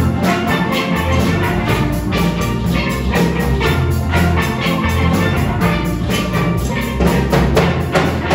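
Steel band playing: several steelpans struck in a quick, steady rhythm over low bass notes, with drums.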